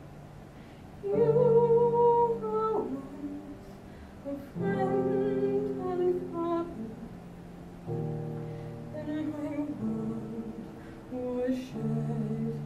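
A woman singing a classical solo in several long, held phrases with short breaths between them, accompanied by piano.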